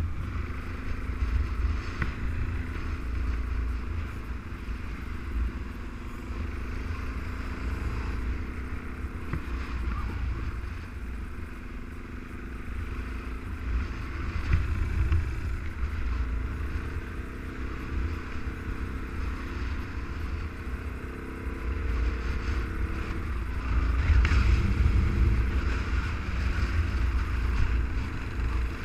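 Suzuki dual-sport motorcycle engine running at low road speed, heard from a camera mounted on the bike, its pitch drifting gently with the throttle. A low wind rumble on the microphone runs under it and swells for a few seconds near the end.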